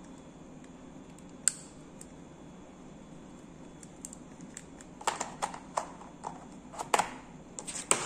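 Plastic clicks and knocks as a blood-glucose lancing device is handled and set back into the moulded plastic tray of its carrying case: one sharp click about a second and a half in, then a quick run of clicks and taps from about five seconds on.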